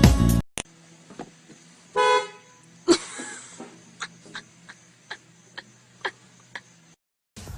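A single short horn toot about two seconds in, followed by a knock and a steady run of faint clicks, about three a second.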